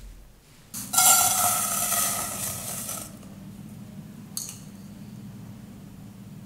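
Sugar being poured into a metal saucepan, the dry granules hissing and rattling against the pan, which rings, for about two seconds. After that a steady low hum from the cooktop under the pan, with one short tick.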